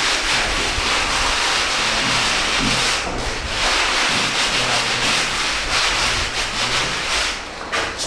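Hand sanding of a cement-plastered wall: sandpaper or a sanding pad scraped back and forth over the rough surface in continuous strokes, with short breaks about three seconds in and again near the end.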